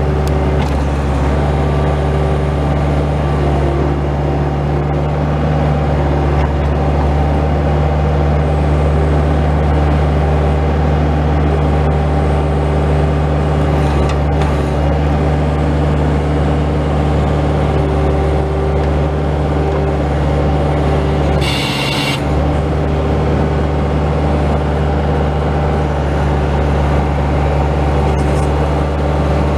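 Bobcat S185 skid steer loader's diesel engine running steadily, with a brief hiss about 22 seconds in.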